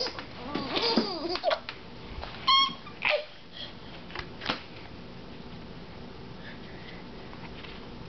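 A baby laughing hysterically in the first second and a half, followed by a few short separate sounds and then only quiet room background for the second half.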